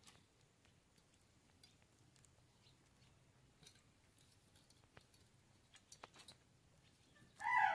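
Faint scattered ticks and light taps of hands handling chopped fresh coriander in a steel bowl. Near the end a rooster starts crowing loudly.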